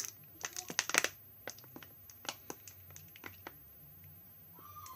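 Homemade glossy slime being squeezed and worked by hand, giving a run of small sticky clicks and pops, thickest in the first second and thinning out after.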